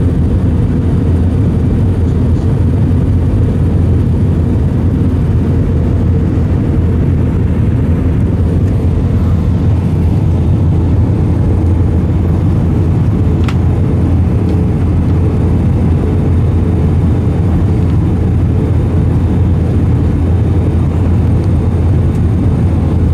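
Airbus A320 cabin noise in flight: a steady low roar with a faint constant hum above it and a single light click about halfway through.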